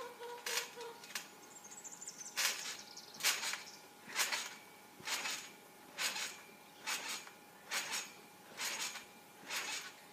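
Trampoline springs and mat sounding with each bounce in a steady rhythm, about one bounce a second.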